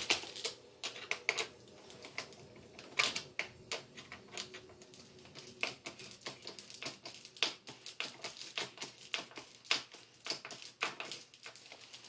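Screwdriver tightening the screw of a metal band clamp around a foil dryer vent duct: a run of sharp, irregular clicks and ticks, a few to several a second, with faint crinkling of the foil.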